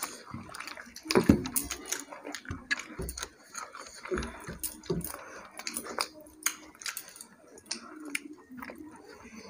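Eating by hand: chewing and mouth smacks, with scattered clicks and scrapes of fingers and food on the plates, the loudest smack about a second in.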